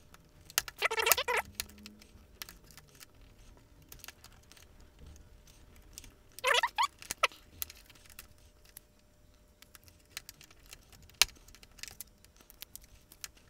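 Small screwdriver prying and scraping at a plastic mouse shell: scattered light clicks and ticks from the clipped-together plastic parts, with two short squeaks, one about a second in and another about six and a half seconds in.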